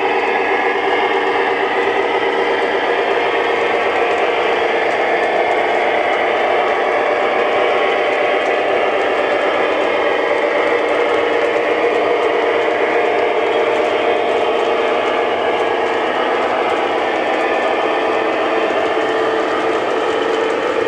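Long O scale three-rail model freight train rolling by, with a steady rumble and clatter of metal wheels on the track.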